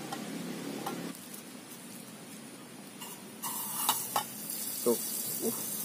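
Butter sizzling as it hits and melts in a hot aluminium camping pan on a portable gas stove. The sizzle starts suddenly about three and a half seconds in, with a few clicks of a knife against the pan.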